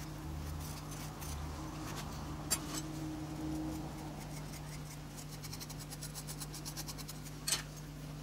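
A metal spoon scraping and scooping moulding sand in a wooden flask, hollowing out a pouring basin in the cope: soft gritty scratching with a run of fine ticks and two sharp clicks, over a steady low hum.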